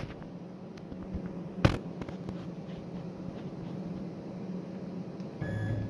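DIY CNC router's stepper motors and drives giving a steady low hum while an axis is nudged with the handwheel pendant. There is a sharp click a little under two seconds in, and a brief whine near the end as the axis steps.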